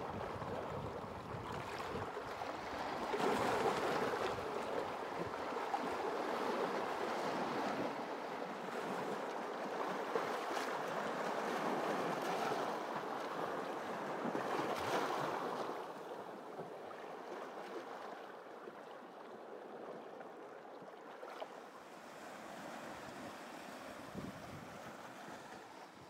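Small waves washing and lapping against a rocky shore, swelling a couple of times and then growing quieter in the last third.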